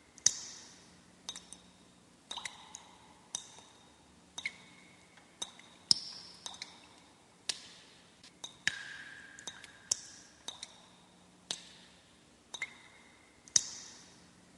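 A series of sharp clicks and clinks, roughly one a second, each leaving a brief high ringing tone, like small glass or metal objects being struck.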